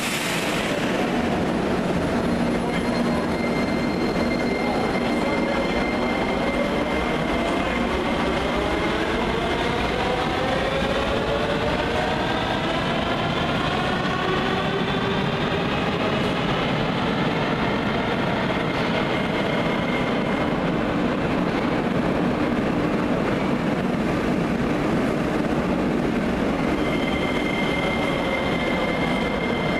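Metro trains running through an underground station: a steady rumble of wheels on rail, with electric traction-motor whines that rise and then slowly fall in pitch over many seconds as a train speeds up or slows. A white Rusich 81-740/741 train runs in beside the platform near the end.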